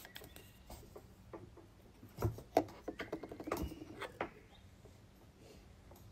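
Clicks and knocks of a plastic Mod Podge squeeze bottle and a metal polyurethane can being handled and set down on a hard floor. Two sharper knocks come about two and a half seconds in, and a run of small clicks follows over the next two seconds.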